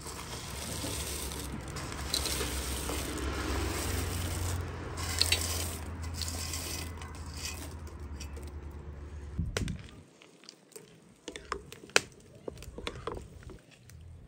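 Dried mulberries pouring and rustling into a pot of water and being pressed down by hand, over a low steady rumble. About two-thirds of the way in the rustle and rumble stop, giving way to scattered sharp knocks of a wooden spatula against the aluminium pot as the fruit is stirred.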